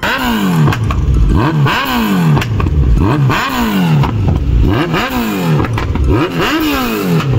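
Kawasaki Z900 inline-four engine through an aftermarket exhaust, blipped repeatedly, revving up and falling back about once a second, with short sharp cracks between the revs.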